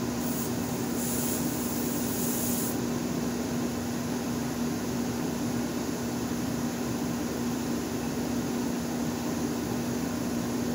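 Steady machine hum with one constant low tone. A faint hiss comes and goes in the first three seconds.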